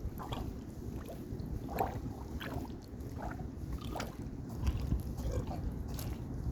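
Footsteps on Hahn mud grids laid over wet clay mud, each step a soft squish. The steps come about one every half second to a second.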